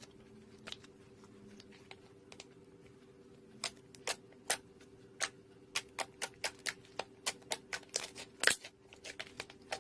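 Slime being squeezed and pressed by hand, making sharp clicking pops as air pockets burst. The pops are sparse at first, then come about two or three a second from a few seconds in, with one louder pop near the end.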